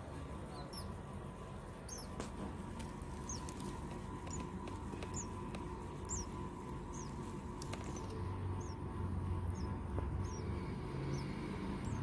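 Baby bird nestling giving thin, high-pitched begging cheeps, about one a second, while being hand-fed paste from a dropper.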